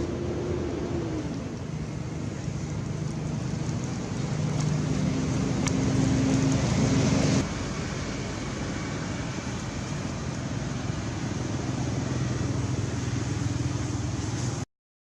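Steady hum of a motor-vehicle engine with road noise. It grows louder about four seconds in, drops off abruptly about halfway through, and cuts out to silence for a moment near the end.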